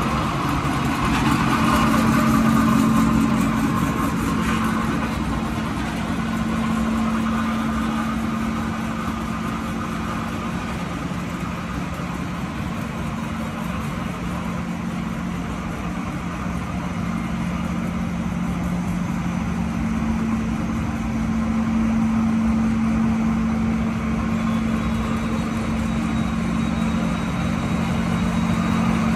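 Waste-fiber nonwoven felt production machinery running: electric motors, rollers and fiber-handling fans in a steady drone with a constant low hum that swells slightly a couple of times.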